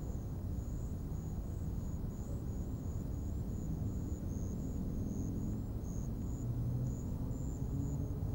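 Night insects chirping in short, evenly repeated high-pitched pulses, about three a second, over a steady low rumble.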